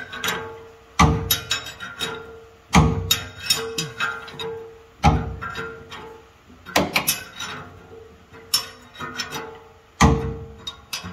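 Steel socket wrench backing a bent stud out of a wood chipper's drum: a sharp metal clank every couple of seconds as the wrench is worked, with quicker clicks between strokes and a ringing tone that comes and goes.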